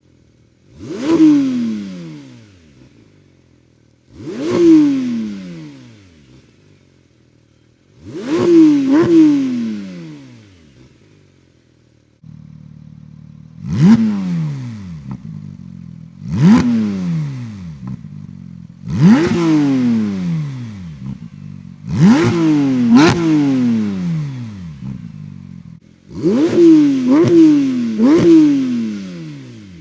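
Porsche 992 GT3 flat-six revved from idle in sharp throttle blips through its exhaust. Each blip jumps up and falls back in pitch over a second or two; some come singly, some in quick doubles and a triple near the end. After a cut about 12 seconds in, the idle between blips is clearly louder as the comparison switches between the stock exhaust and the Fabspeed valved cat-back.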